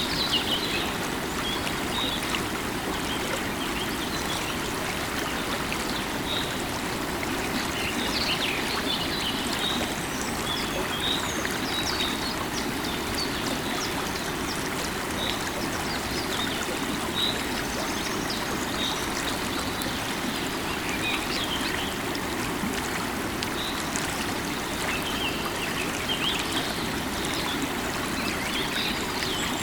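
River water running steadily, with small birds chirping on and off over it.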